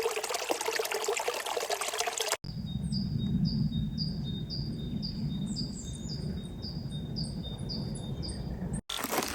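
Forest ambience in short cut-together clips: a songbird repeats a short, high, falling chirp about twice a second over a steady low rush. Hiking noise fills the brief clips before and after.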